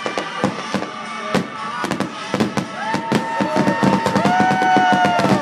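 Fireworks going off in a rapid crackle of many sharp pops and bangs. From about three seconds in, several long, steady tones sound over the crackle.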